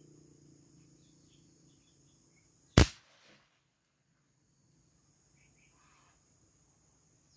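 One sharp crack or knock about three seconds in, over a steady high chirring of crickets.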